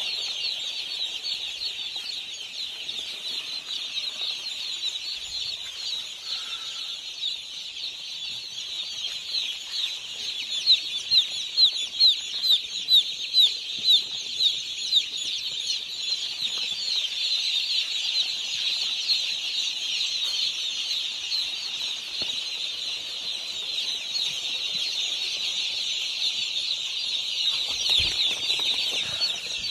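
A large flock of day-old chicks peeping constantly, many high chirps overlapping. From about ten to fifteen seconds in, one chick close by peeps louder, about twice a second.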